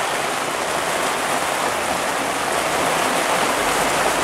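Heavy rain falling and splashing on the street and pavement, a steady hiss; a low rumble comes in near the end.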